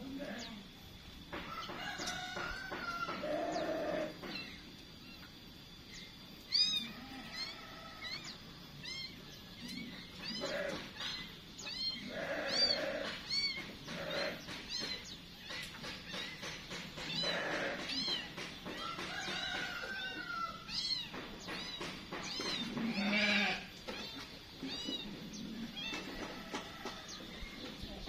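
Small aviary birds chirping: runs of short, high, arching chirps, with louder, lower drawn-out animal calls mixed in.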